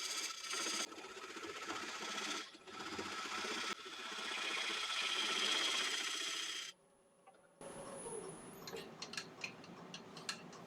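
Spindle gouge cutting away the tenon on the base of an ash bowl spinning on a wood lathe: a steady scraping cut with a few short breaks. About two-thirds of the way in it drops out for under a second, then only quieter light ticks follow.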